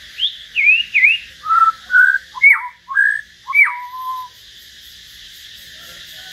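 A caged songbird singing a run of about eight loud, clear whistled notes that slide up and down in pitch, for about four seconds, then falling silent.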